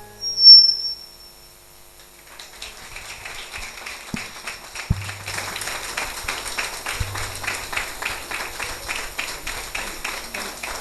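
A brief, loud high-pitched squeal near the start, then a crowd clapping in a steady rhythm of about three claps a second, beginning about two seconds in.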